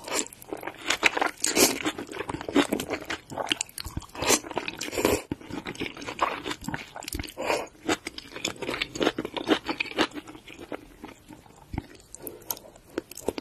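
Close-miked ASMR eating: instant ramen noodles slurped and chewed, with wet mouth noises and a steady run of irregular bites and clicks.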